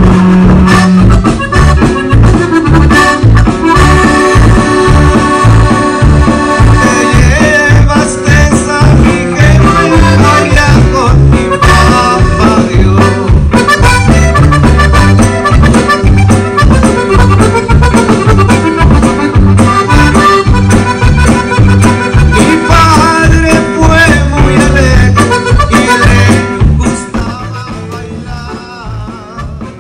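Latin American music led by an accordion over a steady bass beat, turning quieter near the end.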